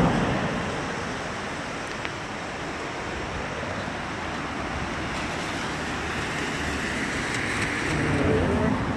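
Steady rush of a swollen, muddy river flowing over boulders below, mixed with wind on the microphone. It swells louder near the end.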